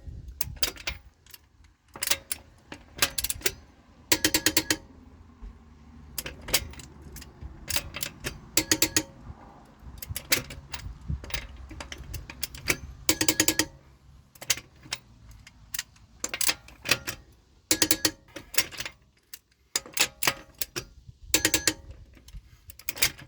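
Click-type torque wrench tightening wheel lug bolts to 110 foot-pounds. It ratchets and gives sharp, ringing metallic clicks in small clusters every second or two as each bolt reaches the set torque.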